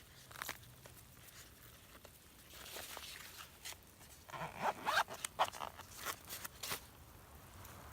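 A string of short rustles, scrapes and clicks, busiest from about halfway through.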